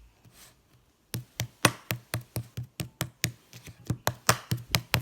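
Hard white slime being squeezed and folded by hand, giving a fast run of sharp clicks and pops, about four or five a second, starting about a second in.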